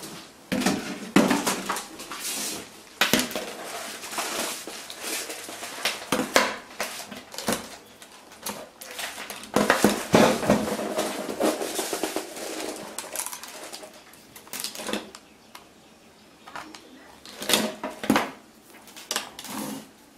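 Plastic headphones and their cables being handled on a wooden tabletop: irregular knocks, clicks and rustling as they are picked up, untangled and set down, with two louder knocks near the end.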